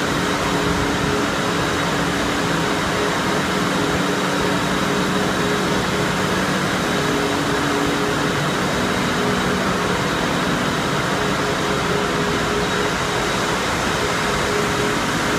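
Steady machinery noise of a dairy membrane filtration plant running, its pumps and electric motors giving an even rushing sound with several steady hums layered in.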